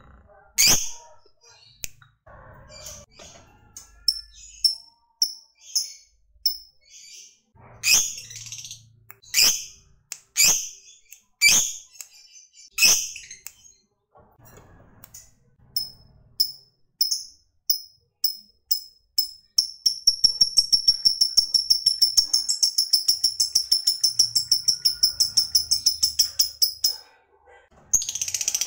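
Lovebird calling: a series of separate sharp, high chirps, then after a short pause a long, very rapid run of chirps lasting about seven seconds that stops suddenly. This is the prolonged chatter ('ngekek panjang') that keepers prize in lovebirds.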